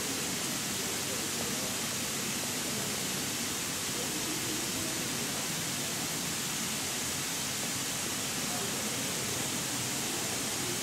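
Sprinkler system spraying fine water mist, a steady even hiss.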